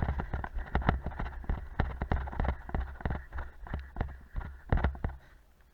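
Running footsteps with thumps and rattle as the camera wearer runs, at about two to three strides a second, stopping near the end.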